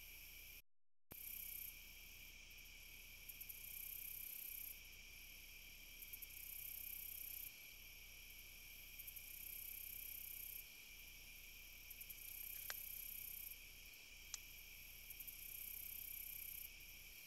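Faint insect chorus of crickets: a steady high trill, with a still higher buzzing that switches on and off every few seconds. Two faint ticks sound late on, and the sound drops out completely for a moment about a second in.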